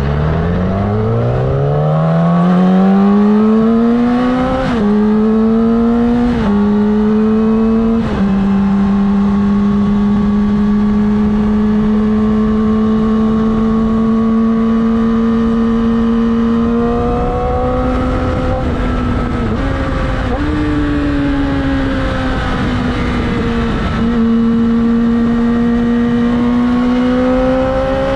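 Yamaha YZF-R6 sportbike's inline-four engine pulling away, its pitch climbing steadily with quick upshifts about five, six and a half and eight seconds in. It then settles to a steady cruise, with a few smaller throttle changes near the end.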